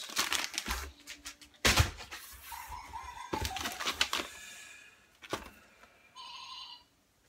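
Plastic-bagged cables and a small cardboard box being handled and tossed in and around a cardboard carton: crinkling bags, rustling and knocks, one louder thump early on. Two short squeaky tones are heard, one near the middle and one near the end.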